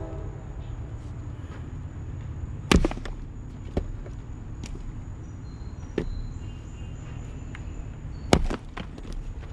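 Axe splitting maple rounds: two sharp chops, about three seconds in and again near the end, with lighter knocks of wood in between.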